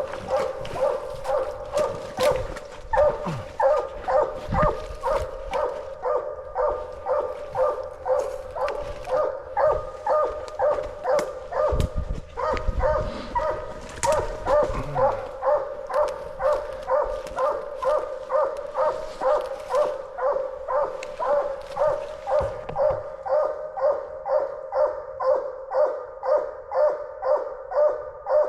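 Coonhounds barking treed on a raccoon: a steady, rhythmic run of barks, about one and a half a second.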